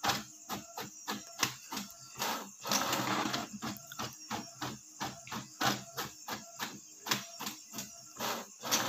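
Brother inkjet printer printing, with a steady run of short ticks about four a second and a longer rushing stretch about three seconds in and again near the end. The printer runs slowly because it is printing in colour.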